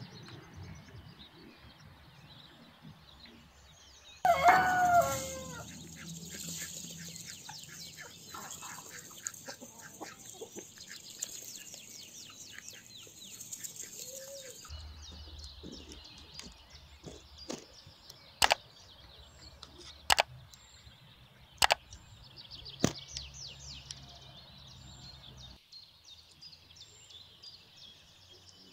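Chickens in a yard: a rooster crows once, about four seconds in, the loudest sound, followed by hens clucking. Later come four sharp clicks, roughly a second and a half apart.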